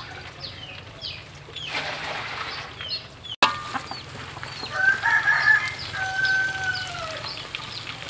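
A rooster crows once about five seconds in, a long call that holds and then falls away at the end, amid repeated short, high, falling peeps. A sharp click comes a little over three seconds in.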